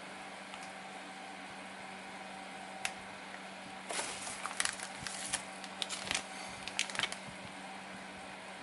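Resin model-kit parts and their plastic packaging being handled: a single click, then a few seconds of irregular crinkling and small clicks about halfway through, over a low steady hum.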